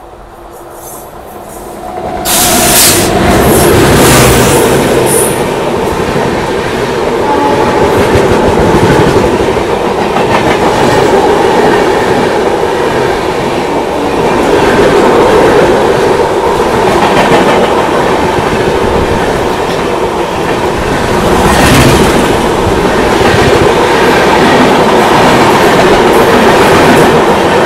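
An Indian Railways WAP-7 electric locomotive and the Shatabdi Express coaches behind it pass close on the next track: a sudden loud rush about two seconds in as the locomotive goes by, then the steady rattle and clickety-clack of coach after coach rushing past, mixed with the filming train's own running noise.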